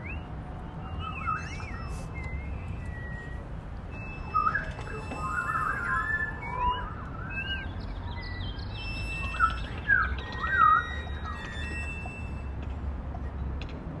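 African grey parrot whistling and chirping: short calls that slide up and down in pitch, coming in clusters with the loudest near the end, over a steady low rumble.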